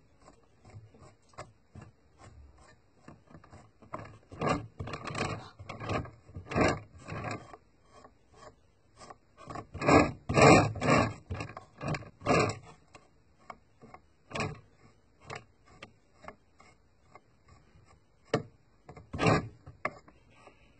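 Stiff paintbrush scrubbing oil paint onto a plastic scale-model tank: quick rubbing strokes in bursts, with louder runs of strokes a few seconds apart.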